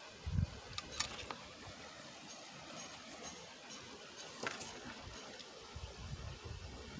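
Metal camp cups and a coffee pot handled at a campfire: a few sharp clicks and clinks about a second in and again past the middle, with a low thump near the start.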